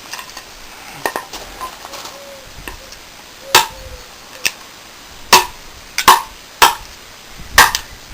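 Martindale No.2 golok machete chopping in an edge test: a series of sharp strikes, each with a brief metallic ring. A few light strikes come early, then heavier ones land about every second in the second half.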